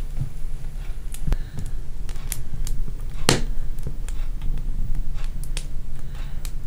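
Irregular sharp crackles and snaps from a stove heating a new stone pot of oil and water, over a steady low hum, with a louder snap about three seconds in.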